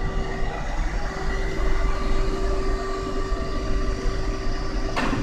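Machine-shop machinery running: a steady rumble with a constant droning tone, and one sharp knock near the end.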